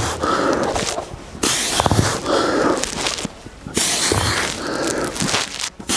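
A man breathing hard under exertion, with loud forceful breaths through the mouth every second or two and short pauses between them. A few dull thumps are heard, about two seconds apart.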